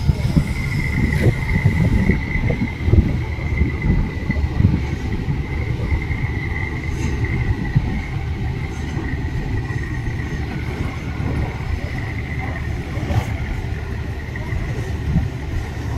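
An engine running steadily: a low rumble with a thin, steady high whine above it.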